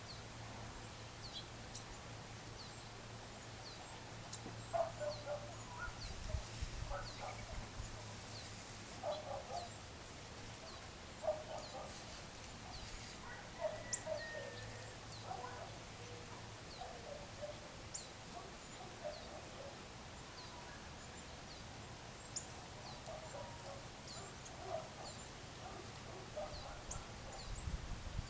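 Wild birds calling: a short, high chirp repeats about once a second, while bursts of lower-pitched calls come every few seconds, over a faint steady low hum.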